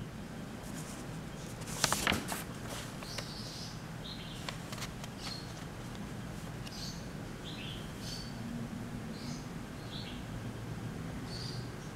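Small birds chirping in the background, short high chirps about once a second. A brief cluster of sharp clicks about two seconds in.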